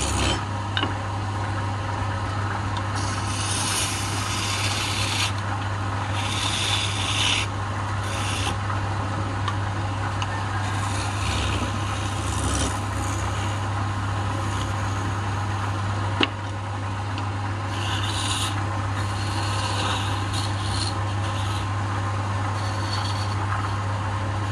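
Wood lathe running with a steady motor hum while a hand-held turning tool scrapes against the spinning wooden workpiece, coming in repeated bursts of scraping as the tool bites. One sharp click about sixteen seconds in.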